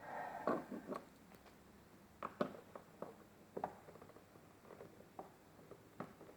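Light clicks and taps of hands and a tool working on plastic car dashboard trim during disassembly: a quick cluster of clicks in the first second, then scattered single clicks.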